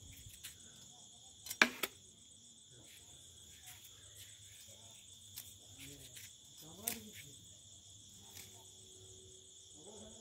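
Steady high chirring of crickets, with a sharp knock about one and a half seconds in and a smaller one near seven seconds.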